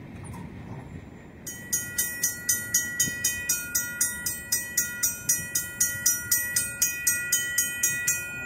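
Railroad crossing bell ringing at a steady rate of about four strikes a second, as the gates rise after the train has cleared. It starts about a second and a half in and stops near the end.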